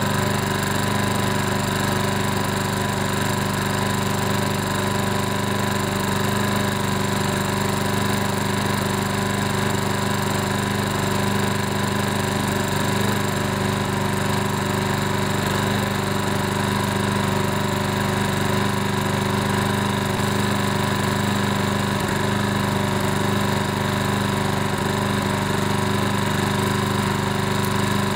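Briggs & Stratton 8.75 OHV single-cylinder engine on a Toro TimeMaster mower idling steadily while warming up, blades disengaged. The engine is set to sit at this low idle until the blades are engaged, when it revs up.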